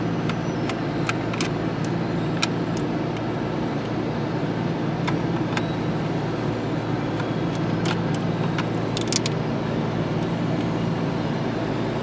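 Steady low diesel drone of road-milling machinery and dump trucks chewing up asphalt, with scattered light clicks of a screwdriver working screws out of the steering column trim.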